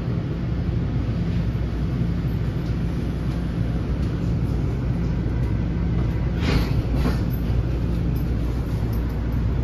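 Inside an NJ Transit multilevel rail coach in motion: the steady low rumble and hum of the moving train, with two brief, sharper clatters about six and seven seconds in.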